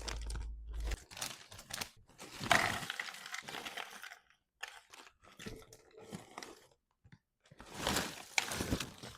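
Irregular bursts of crinkling and crunching with short silent gaps between them, loudest about two and a half seconds in and again about eight seconds in.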